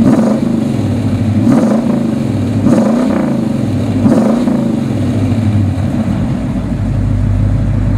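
1964 Pontiac GTO's 389 V8 with Tri-Power carburettors, running loud through a Magnaflow stainless exhaust: it is blipped up and back down about four times in the first few seconds, then settles into a steady idle.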